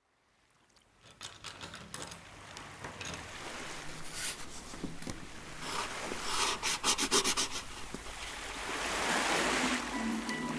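Water rushing and splashing, with wind, growing louder, and a quick run of clicks and knocks about six to seven seconds in.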